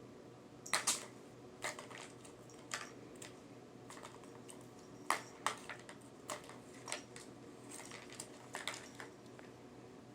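A cat at play making irregular light clicks and taps, about a dozen scattered unevenly, some in quick pairs, over a faint steady room hum.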